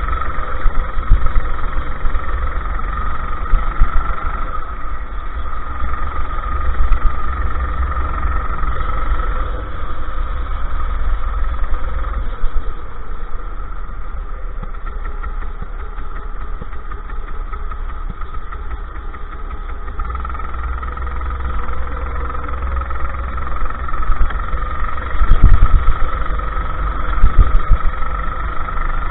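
Go-kart engine running at race speed, heard onboard with heavy wind rumble on the microphone; its pitch sags through the middle of the stretch and climbs again near the end. A few loud thumps break through, the strongest near the end.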